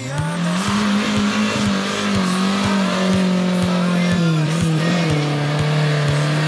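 Off-road 4x4's engine revving up hard at the start and then held at high revs as the vehicle ploughs through a mud pit, spraying mud. Many short sharp knocks run through it.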